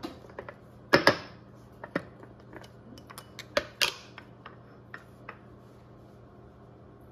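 Snap-lock plastic lid being unclipped and lifted off a glass food-storage container, then the glass container handled on a countertop: a series of sharp clicks and knocks, the loudest two in quick succession about a second in and another pair a little before the four-second mark.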